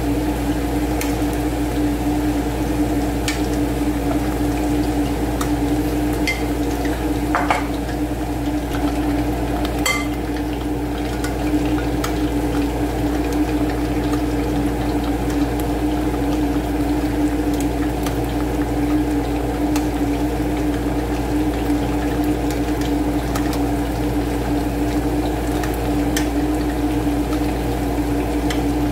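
Breaded chicken pieces deep-frying in a pan of hot oil: a steady bubbling of the oil over a constant low hum, with a few sharp clicks of a metal utensil against the pan as the pieces are turned.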